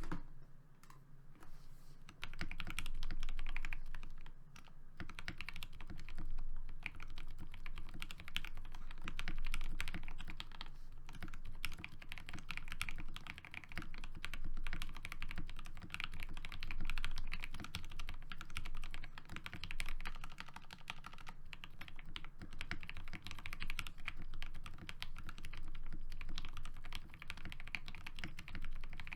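Typing on a FEKER JJK84 mechanical keyboard fitted with hand-lubed Momoka Frog switches, dye-sub PBT Cherry-profile keycaps and PE foam switch pads: a fast, unbroken run of key strokes that starts about two seconds in.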